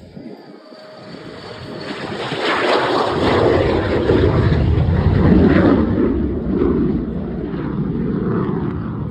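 Jet aircraft taking off, its engine noise swelling over the first few seconds into a loud, steady rushing sound as it lifts off and climbs away.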